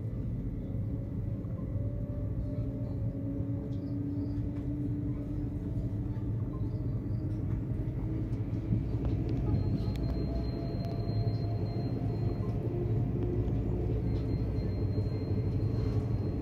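Stadler FLIRT diesel train heard from inside, under way: a steady low rumble of running gear and engine, with whining tones that climb slowly in pitch as the train picks up speed.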